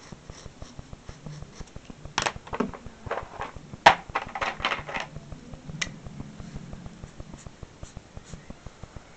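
Drawing markers being put down and picked up: a few seconds of clicks and knocks, the sharpest about four seconds in. Under it runs a faint, even ticking, about four ticks a second, and a low hum.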